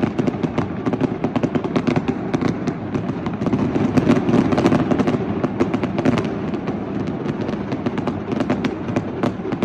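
Many fireworks going off at once: a dense, steady crackle of overlapping pops and bangs with no pause.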